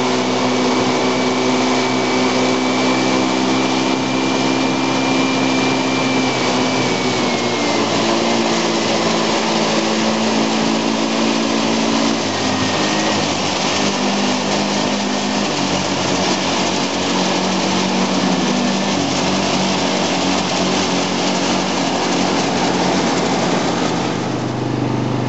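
Small quad bike (ATV) engine running at speed along a paved road, its pitch stepping down and up several times with throttle and gear changes. A steady rushing noise lies under it.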